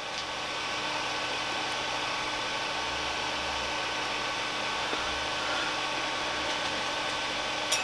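Elegoo Neptune 2 FDM 3D printer running while it extrudes filament from its hot nozzle: a steady whir from its cooling fans with a few faint steady hum tones. A light click near the end.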